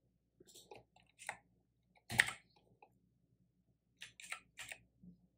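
Scattered keystrokes on a computer keyboard: a few single clicks, a louder one about two seconds in, and a quick run of four near the end.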